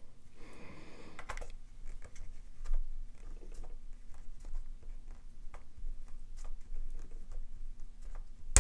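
Hand screwdriver working the small spring-loaded screws of a graphics card's GPU bracket: a run of light, irregular clicks and ticks of metal on metal, with one sharper click at the very end.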